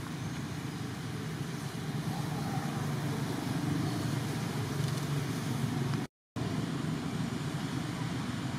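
Steady low outdoor background rumble, with no distinct animal calls. It cuts out completely for a moment about six seconds in.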